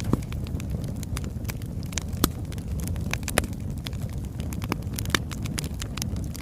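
Wood fire burning, with a steady low rumble and irregular crackles and pops of burning logs, a few louder snaps among many faint ones.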